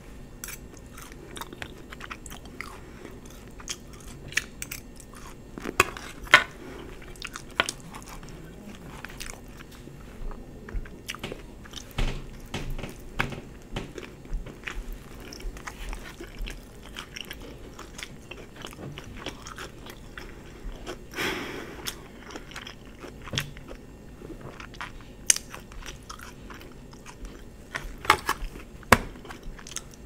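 Close-miked eating of gravy-and-cheese-covered fries: chewing and biting with many sharp wet clicks, louder in bunches about six seconds in, around twenty seconds and near the end.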